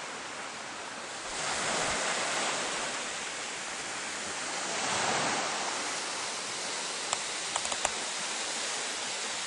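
Small waves washing onto a stony beach: a steady hiss that swells twice, about a second and a half in and again about five seconds in. A few faint ticks near the end.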